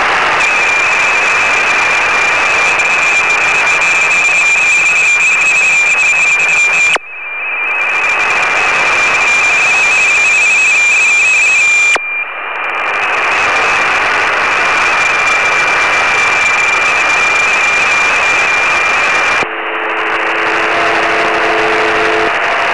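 Shortwave receiver audio in single-sideband: loud band hiss with the two steady tones of an RTTY signal. The hiss cuts out abruptly twice as the receiver retunes, and about 19 seconds in it changes band, leaving a few steady, lower PSK31 tones under the noise.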